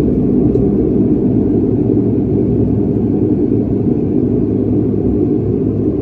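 Steady low drone of a de Havilland Canada Dash 8-100's twin turboprop engines and propellers, heard from inside the cabin.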